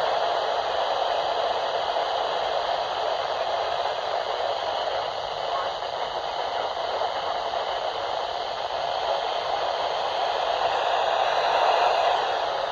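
Steady radio static: a hiss from a weather radio receiver with no broadcast voice coming through.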